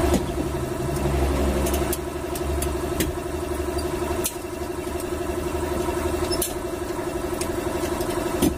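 An engine running steadily at idle, with a few sharp metallic clicks from hand tools on the rocker-arm adjusting screws of a diesel's exposed valve train during valve clearance adjustment.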